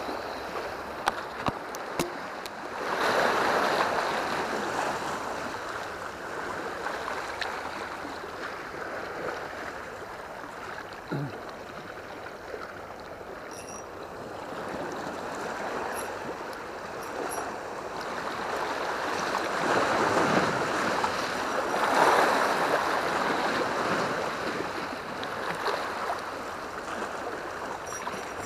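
Sea waves washing against rocks at the foot of a concrete seawall: a steady rushing that swells about three seconds in and again around twenty seconds in.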